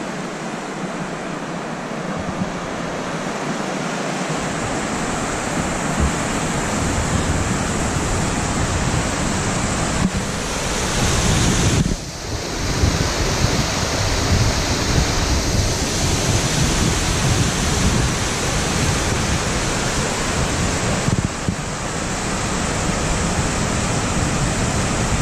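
Steady rushing of a waterfall's water pouring over rocks, with wind buffeting the microphone from about four seconds in.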